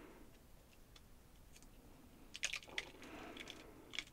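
Thin plastic stencil being peeled up from a wet watercolor panel: faint crackling clicks of the flexing plastic and a soft, squishy peel, mostly in the second half.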